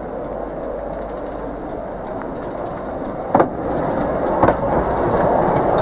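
Small narrow-gauge steam locomotive at rest, with a steady hiss under a faint ticking that repeats about every second and a half. Two sharp metallic clanks about a second apart come a little past the middle.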